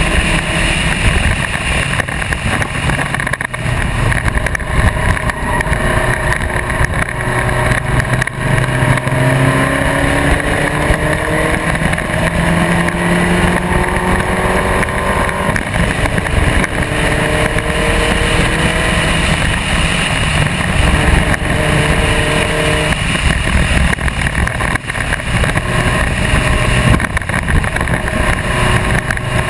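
Spec Racer Ford racing car at speed, its engine running under heavy wind rush on the microphone. The engine note climbs steadily for several seconds at a time, breaking off about halfway through and again about three-quarters through.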